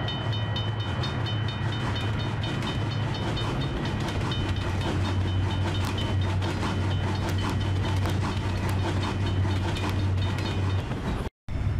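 A train passing a level crossing: a crossing bell rings in quick, evenly repeated strokes over the train's steady low rumble. The sound cuts off briefly near the end.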